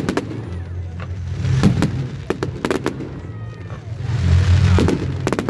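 Aerial fireworks bursting overhead in a display, sharp bangs coming in clusters, with a quick run of four about halfway through.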